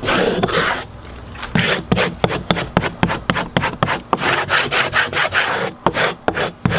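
Vinyl installation squeegee rubbing over the transfer mask of a vinyl decal to press it onto a textured RV slide wall. It makes one longer rub, then quick, repeated short scraping strokes, several a second.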